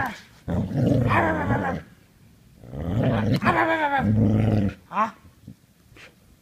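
Dog growling in tug-of-war play with a toy, in two long stretches and a short one about five seconds in.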